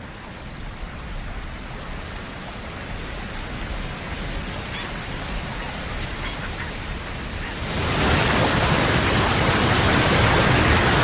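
Rushing water of a fast river swollen with meltwater. It is a steady, even noise that grows slowly louder and steps up sharply about eight seconds in.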